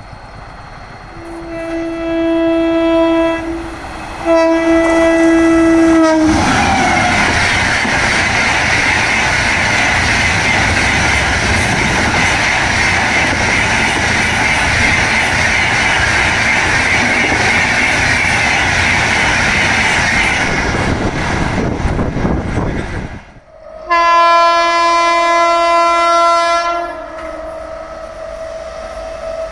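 Mumbai Rajdhani Express approaching: its electric locomotive sounds its horn twice, then the train passes at speed with a loud, steady rush of wheels on rails for about seventeen seconds. After a sudden cut, a locomotive horn sounds one long blast.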